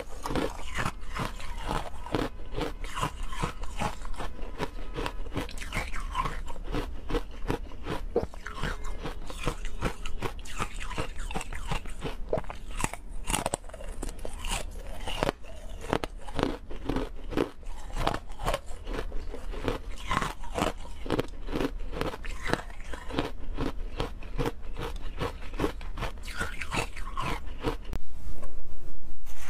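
Close crunching and chewing of thin discs of frozen milk ice: many quick, irregular crisp cracks as the ice is bitten and broken up in the mouth. Near the end the sound suddenly gets louder.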